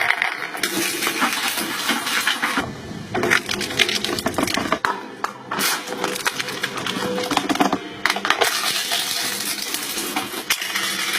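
Hydraulic crushing machine breaking up an object: a dense stream of cracks, snaps and crunches, with short lulls, over a steady hum.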